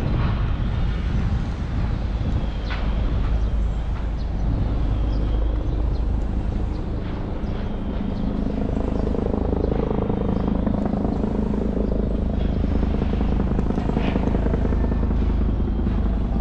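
Steady low engine noise from motor vehicles, swelling somewhat around the middle.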